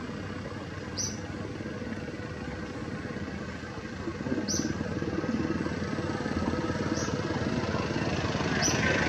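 Steady low rumble like a running engine, getting louder from about four seconds in, with four short high chirps spaced a couple of seconds apart.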